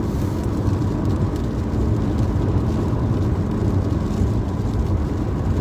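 Steady road and engine noise heard from inside a moving car driving at a constant speed: a low, even rumble of tyres and engine.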